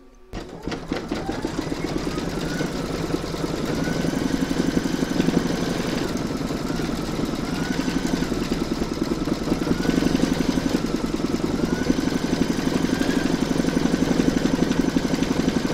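Embroidery machine stitching, its needle striking in a rapid, even rhythm. Its motor whine climbs as it speeds up over the first couple of seconds, then rises and dips slightly as it sews the design's outline stitching.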